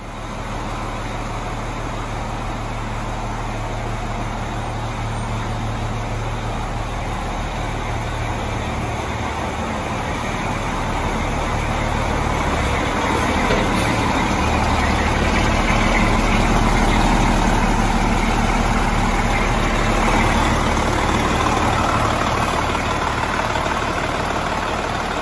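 MCI 102DL3 coach's diesel engine running at low speed, a steady low hum that grows louder from about halfway in.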